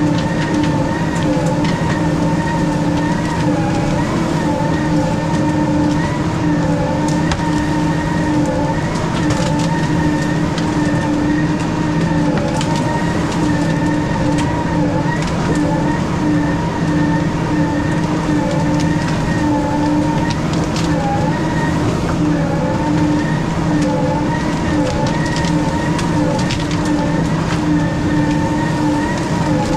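Weiler S340 skidder running steadily under load while dragging a grapple-load of logs: a continuous engine drone with a high, slightly wavering whine over it, and scattered faint snaps.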